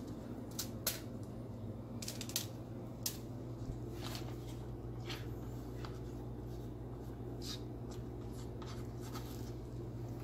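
Food-prep handling sounds in a kitchen: scattered light clicks and rustles, a few sharper ones near the start, over a constant low hum.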